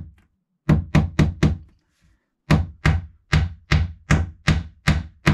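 Small hammer tapping panel pins into a board at the back of a wardrobe shelf: a run of four quick sharp taps, a short pause, then about eight more at an even pace of roughly two and a half a second.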